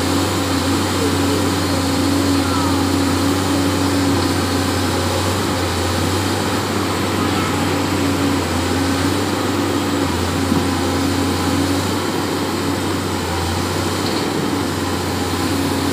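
Pindad Excava 200 hydraulic excavator's diesel engine running steadily while the machine digs and places mud, with a steady higher tone that drops out and comes back several times.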